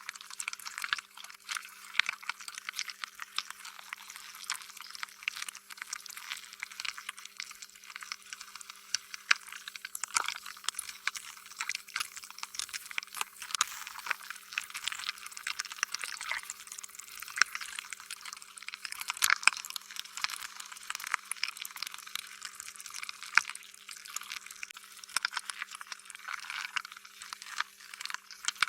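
Slime being squished and stretched: a continuous run of irregular wet, sticky squelches, pops and crackles, over a faint steady hum.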